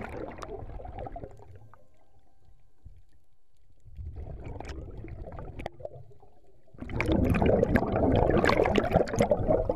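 Exhaled bubbles from scuba divers' regulators, heard underwater, in three bursts of bubbling: a short one at the start, another about four seconds in, and the longest and loudest from about seven seconds in.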